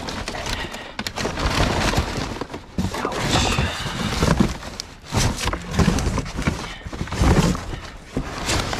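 Scrap and debris in a dumpster being dug through by hand: irregular clattering and knocks as pieces are shifted and pulled aside.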